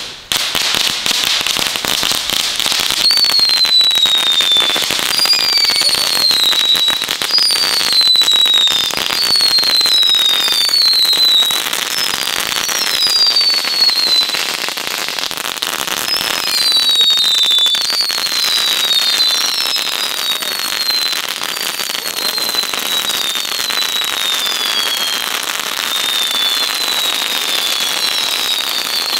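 Category 1 ground fountain firework burning: a steady loud hiss of spraying sparks, thick with fine crackling. From about three seconds in, falling whistles come roughly once a second, often overlapping.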